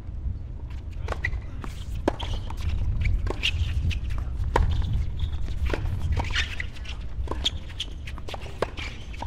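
Tennis ball bouncing on an outdoor hard court and being struck by rackets as a doubles point begins, with players' shoes tapping and scuffing. Scattered sharp taps sound over a low steady rumble.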